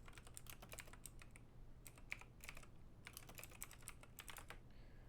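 Faint typing on a computer keyboard: quick runs of keystrokes that stop shortly before the end.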